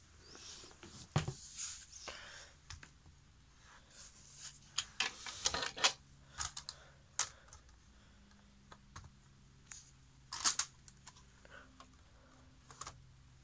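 Blue plastic toy train track pieces being handled and fitted together: scattered, irregular plastic clicks and knocks, with louder ones about a second in, near six seconds and near ten and a half seconds.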